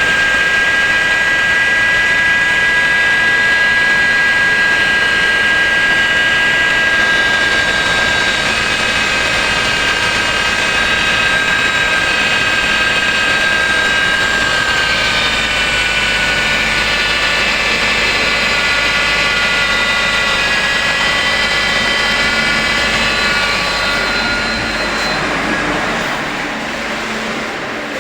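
Idling engine with a loud high-pitched whine of several tones, blamed on a bearing fault. The whine sinks slowly in pitch from about halfway and fades near the end.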